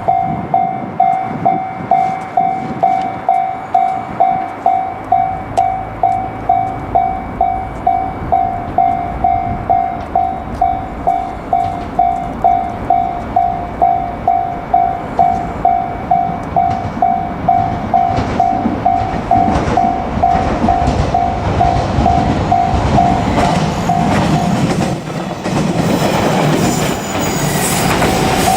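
Japanese level-crossing warning bell dinging steadily, about twice a second. A JR Kyushu 817 series electric train approaches and runs past the crossing, its rumble and wheel clatter growing over the last ten seconds until the train drowns out the bell.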